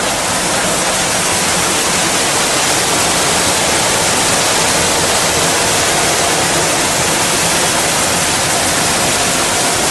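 Plastic colour sorting machine running: a loud, steady hiss-like rushing noise with no separate knocks or tones.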